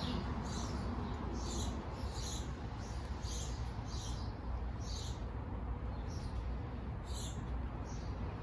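Short, high chirps repeated about one or two times a second, with a pause just past the middle, over a steady low rumble.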